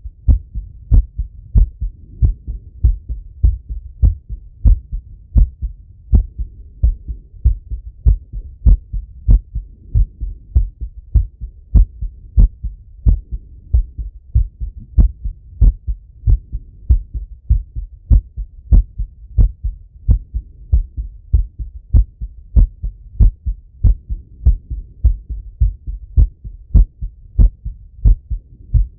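Male human heartbeat heard through a Littmann stethoscope held on the chest: a quick, even run of low paired lub-dub thumps, the heart rate raised after a set of exercise.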